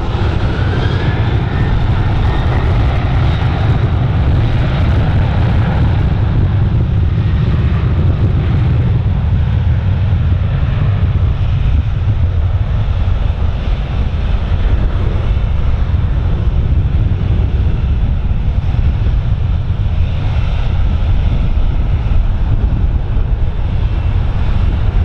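Jet airliner engine noise, with a rising whine in the first couple of seconds, fading after about eight seconds. Under it, heavy wind buffets the microphone in a steady low rumble that is the loudest sound throughout.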